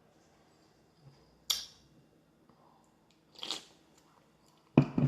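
A person taking a sip from a can of energy drink: mostly quiet, with a sharp click about a second and a half in, a short sip a little after three seconds, and a loud knock near the end.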